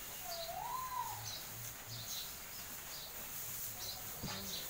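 Small birds chirping repeatedly in short, high notes, with one whistled call that rises and falls early on and a single knock near the end.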